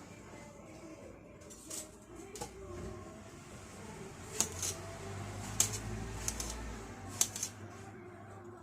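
Kitchen knife slicing fresh strawberries, with a few sharp clicks of the blade on the cutting surface scattered through, and a low hum in the middle.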